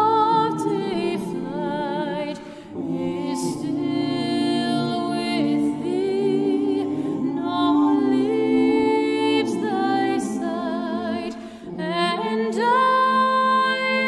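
Mixed a cappella choir singing a hymn in sustained harmony, with a female solo voice singing with vibrato above it. The singing breaks briefly between phrases about three seconds in and again about eleven and a half seconds in.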